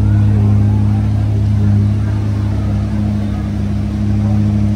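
An engine idling at a steady low pitch, with faint voices in the background.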